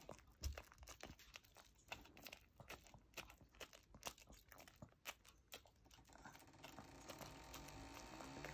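A chihuahua chewing a big marshmallow: faint, irregular mouth clicks and smacks as her jaws and tongue work at it.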